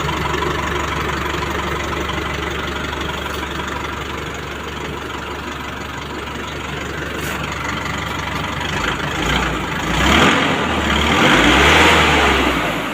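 Isuzu NMR six-wheel truck's 4JJ1 four-cylinder turbo diesel idling steadily, then revved up several times in the last few seconds.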